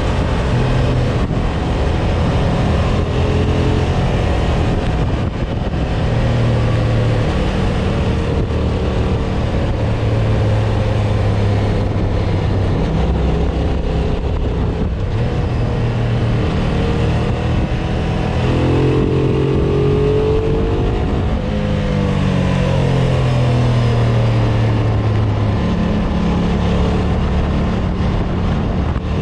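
Ducati ST 1000's L-twin engine running as the motorcycle is ridden, under a steady rush of wind noise. The engine note shifts with the throttle: it rises sharply for about two seconds about two-thirds of the way through, then falls away over the next few seconds before steadying again.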